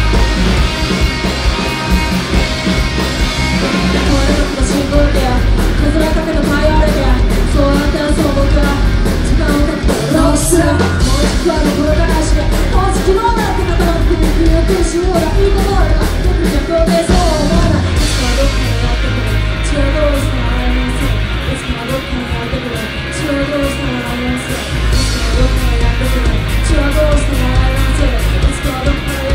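Live rock band playing: distorted electric guitar and drums under a lead vocal singing.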